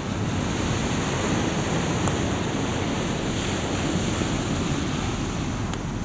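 Steady rush of sea surf mixed with wind buffeting the microphone, with a couple of faint pops from a wood campfire, about two seconds in and near the end.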